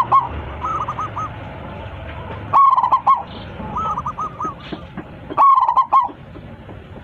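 Zebra dove (perkutut) cooing: a loud opening note followed by a run of rolling, looping coos, the phrase repeated about every three seconds.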